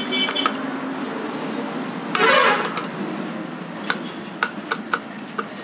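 A vehicle horn honks briefly at the start and again, louder, about two seconds in, over a steady background hum. A few light metal clinks follow near the end as engine parts are handled.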